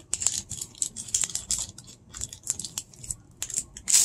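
Plastic candy-bar wrapper on a Mr. Beast chocolate bar crinkling and crackling in the hands as it is worked open, with irregular rustles and small sharp clicks.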